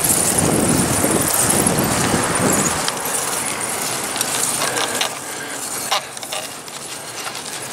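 A vehicle drives past a moving bicycle, with wind rushing on the microphone, for the first three seconds or so. After that comes a quieter hiss of riding, with light rattles and clicks from the bike.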